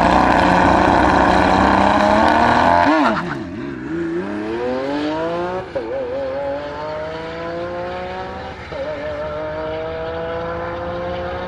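Two cars drag racing, a Lamborghini Aventador SVJ's V12 and a black convertible: engines held at steady high revs on the line, then launching about three seconds in. They accelerate away with rising pitch, upshifting twice, about six and nine seconds in.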